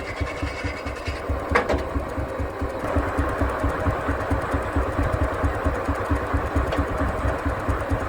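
Baker steam traction engine running steadily with a rapid, even exhaust beat. One sharp knock comes about a second and a half in.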